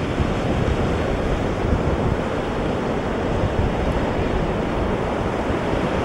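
Steady wash of ocean surf, mixed with wind rumbling on the microphone.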